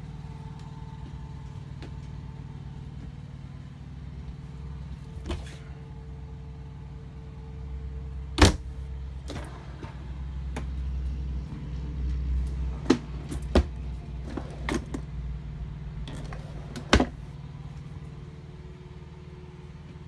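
A steady low mechanical hum, with a handful of sharp knocks and clacks over it: one loud one about eight seconds in and several more in the second half.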